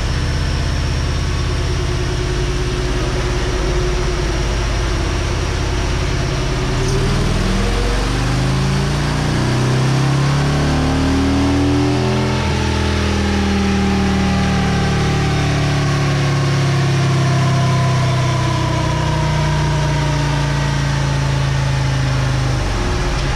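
Liquid-cooled Harley-Davidson V-twin running on a chassis dyno. Its engine speed climbs for several seconds, shifts abruptly about halfway through, then slowly falls. The engine has reached 270°F and its computer is cutting power by retarding the timing, so it bogs down.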